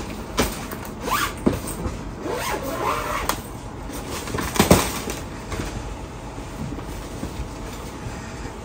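The zipper of a clear plastic comforter bag being pulled open in several short rasping strokes, with plastic and fabric rustling as the comforter is lifted out; the loudest stroke comes about halfway through.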